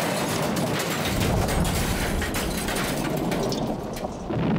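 Sound effects of a giant boulder smashing into quarry buildings and blowing up: a dense, rumbling crash full of crackling debris, with a fresh boom near the end.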